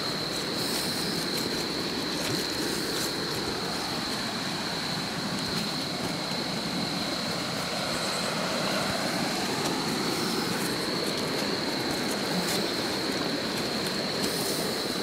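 Steady rush of river water, with a thin high-pitched tone held throughout.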